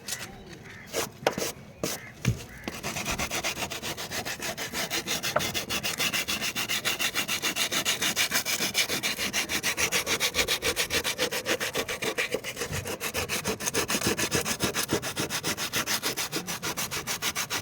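A cement roof sheet being scraped by hand along a crack to clean it before repair, in rapid, even back-and-forth strokes several times a second. A few short knocks come first, then the scraping settles in after about three seconds.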